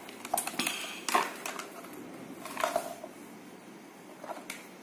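A few scattered clicks and rustles of a plastic charging adapter and its cable and round plug being handled.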